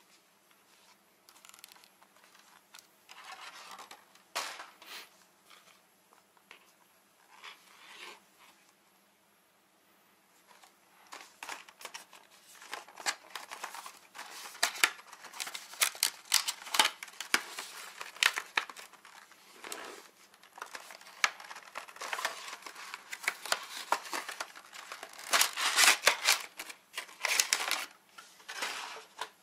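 Hands handling stiff plastic packaging and a clear plastic goggle lens: crinkling, rustling and small clicks and snaps. The sound is sparse at first and becomes a busy, crackly run of handling noise from about ten seconds in.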